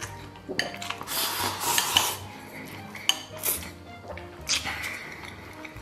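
Wooden chopsticks clicking and scraping against a ceramic rice bowl during eating, with close-up slurping and chewing of braised pork, rice and vermicelli. Several sharp clicks come in the second half.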